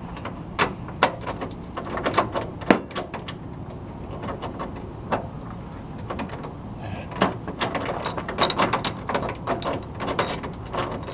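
Hand tools and metal parts clicking and knocking irregularly as the hood latch is worked back into place, with a quicker run of clicks and taps in the last few seconds.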